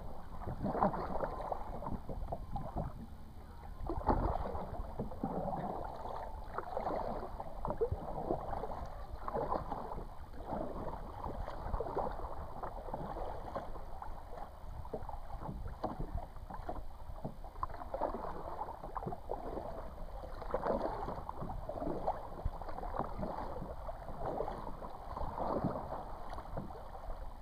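Kayak paddle strokes dipping and splashing in the water, one after another at an uneven pace.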